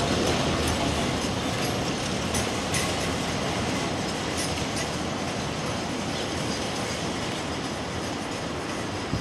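Freight train's container flat wagons rolling past and drawing away: a steady rumble of wheels on rail with scattered clicks, slowly fading.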